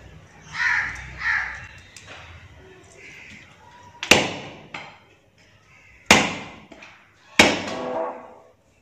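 Meat cleaver chopping through a cow's trotter on a wooden chopping block. Three heavy strikes in the second half, with a lighter knock just after the first; each rings briefly.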